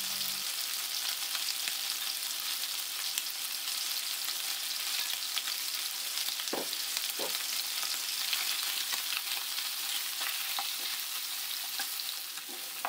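Seared chicken thighs and curry paste sizzling in hot oil in a pan while being stirred, the utensil scraping and knocking against the pan now and then, most sharply twice about six to seven seconds in.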